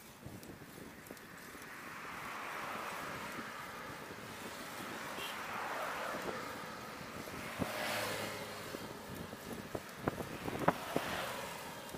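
Wind rushing over the microphone of a camera on a moving motorcycle, with road noise and a car passing close by about eight seconds in. A few sharp clicks near the end.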